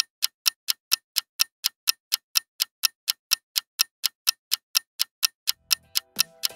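Countdown timer sound effect: a clock-like tick repeating evenly, about four ticks a second.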